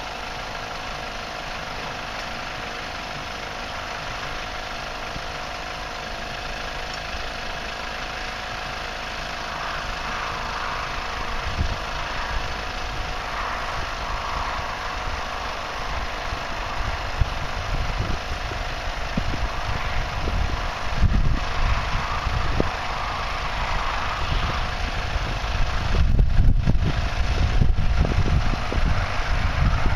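Twin 12V air compressors running steadily with a continuous motor hum, pumping up the air beams of a Karsten 350 inflatable tent. Gusts of wind buffet the microphone with a low rumble that grows stronger in the second half.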